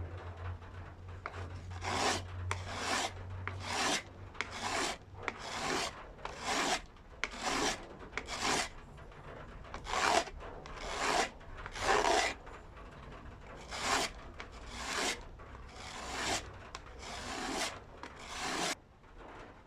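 Hand file being drawn back and forth in rasping strokes, about two a second, starting about two seconds in and stopping just before the end.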